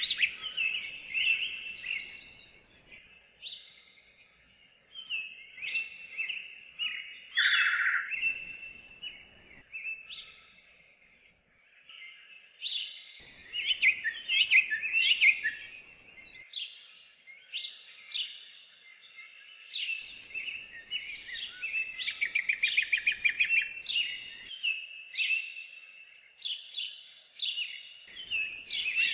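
Birdsong: birds chirping in runs of short, high notes, with a fast trill a little after the middle.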